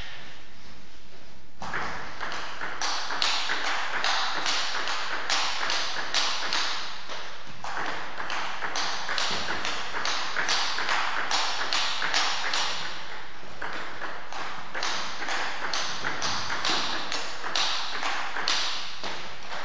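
Table tennis rally: the celluloid ball clicking back and forth between paddles and table in a quick, even rhythm, about two to three hits a second. It starts about a second and a half in, with short breaks between rallies.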